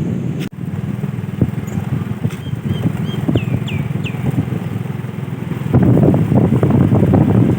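A motor engine running steadily, getting louder about three-quarters of the way through, with a few short high chirps in the middle.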